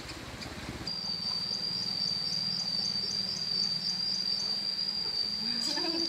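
An insect's continuous high-pitched buzzing trill, starting about a second in and holding steady, with a low hum beneath it.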